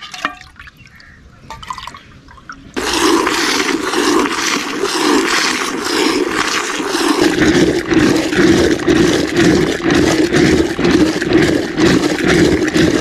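Quiet handling sounds at first, then from about three seconds in a loud, fast, rhythmic splashing of milk: squirts of hand-milking hitting a metal pail, then milk churned with a wooden churning stick in a clay pot, with deeper sloshing thuds in the second half.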